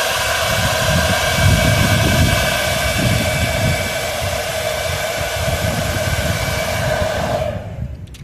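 Hand-held hair dryer running steadily on high, blowing onto a car window to soften the tint film's glue, with a gusty low rumble of the airflow. It is switched off near the end.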